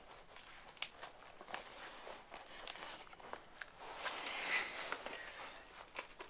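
Faint scattered clicks and light scraping as the end cap of a Yoshimura RS-9T muffler, its rivets drilled out, is worked loose.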